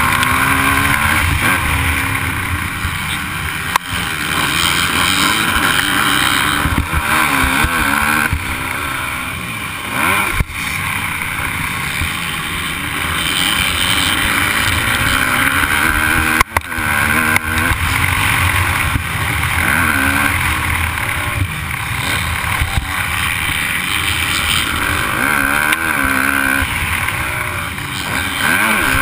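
Motocross dirt bike engine racing, revving up and down through the gears as the throttle is worked, with wind buffeting a helmet-mounted camera's microphone. A few times the sound drops sharply for a moment.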